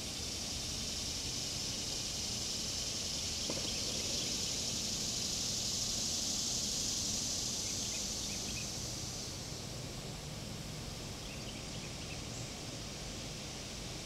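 A cicada's buzzing drone swells, holds for several seconds, then fades away about nine seconds in. A few faint short chirps follow near the end.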